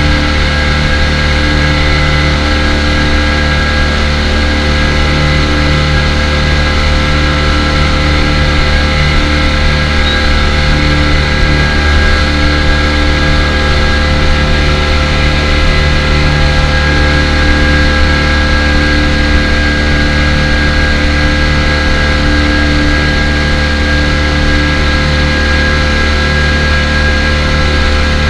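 Speedboat engine running steadily at cruising speed, heard loud and close from aboard the boat, with a steady low hum and a regular pulsing throb.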